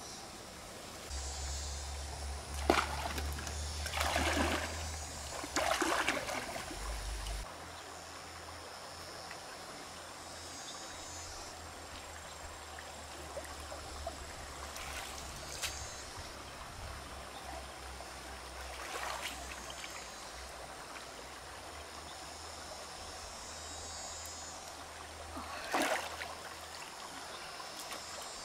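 A shallow stream trickling steadily, with occasional short splashes from wading through the water. In the first seven seconds there are several louder knocks over a low rumble.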